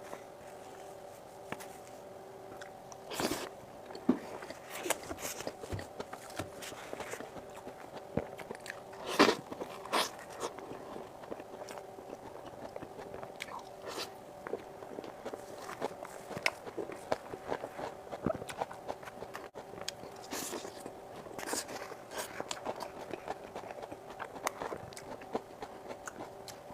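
Close-miked eating of whipped-cream mille crepe cake: irregular mouth smacks and chewing clicks, loudest around nine seconds in. A steady hum sits underneath.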